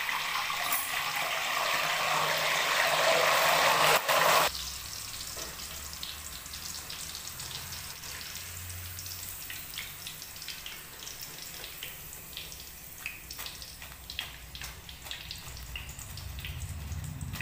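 Hot oil in a kadai sizzling loudly and spitting after salt water is poured over frying potato chips, the hiss growing for a few seconds and then cutting off abruptly. After that, a quieter frying sizzle with scattered crackles as a wire skimmer works the chips out of the oil.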